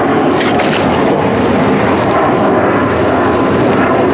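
Steady engine drone, with kraft paper rustling as a potted plant is pulled from its paper wrap.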